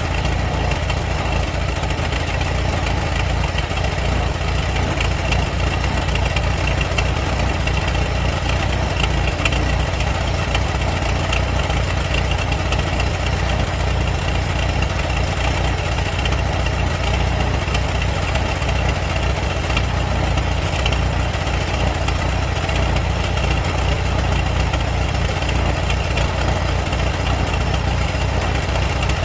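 Old car engine idling steadily with a fast, even chugging pulse and no change in speed.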